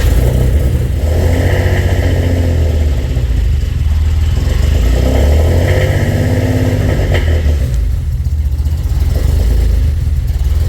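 Infiniti G35's freshly rebuilt 3.5-litre V6 running just after its first start, with a loud, uneven rumble that swells up twice as if revved. The engine is stumbling, which the owner puts down to a large vacuum leak.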